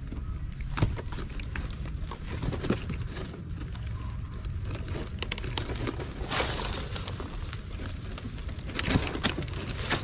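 Rustling and crinkling of a cloth bag and woven plastic basket being handled, with scattered clicks and a louder stretch of rustling about six seconds in and again near the end, over a steady low rumble.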